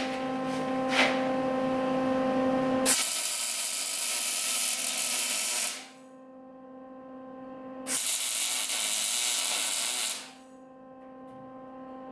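Wire-feed (MIG) welder arc crackling in two runs, about three seconds and then about two and a half seconds long, each stopping sharply: welding a steel adapter bracket onto a car body's bumper mount. A steady electrical hum underneath.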